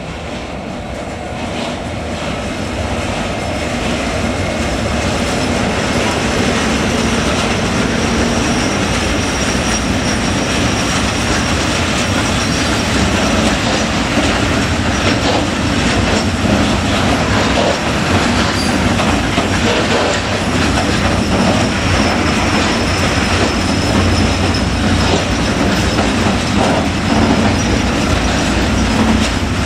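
Freight train passing close by, its wagons' wheels clattering over the rail joints with some wheel squeal; it grows louder over the first six seconds or so, then holds steady.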